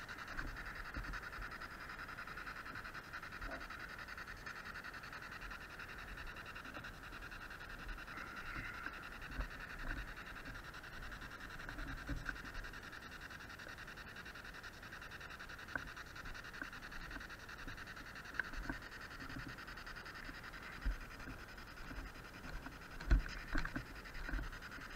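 SB7 spirit box radio sweeping through stations: a steady, fast-chopped hiss of white-noise static. A few soft low thumps, the loudest near the end.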